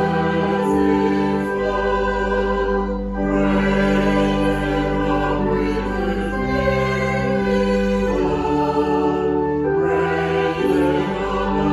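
Slow choral music: voices singing sustained chords that change every few seconds.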